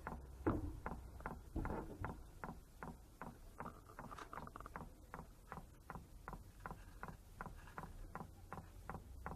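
Chinese diesel heater's fuel dosing pump ticking evenly, about three clicks a second, over a steady low hum.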